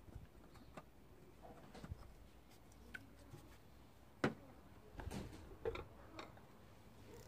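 Scattered light clicks and knocks of hands working around a rubber air intake hose and plastic covers in a car engine bay. A sharp click about four seconds in, as a metal socket is set down on a plastic cover, followed by a few more knocks.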